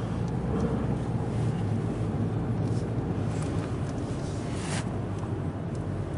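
Steady low engine and road rumble heard from inside a moving car, with a short hiss about three-quarters of the way through.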